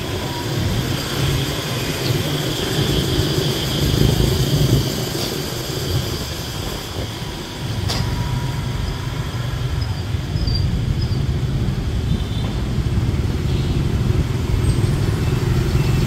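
Motor scooter engine running steadily during a city ride, a low even hum, mixed with the noise of surrounding street traffic.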